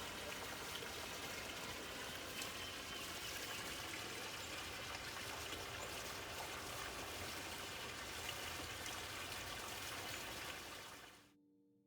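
Steady rush of water with faint scattered drop ticks, cutting off abruptly near the end.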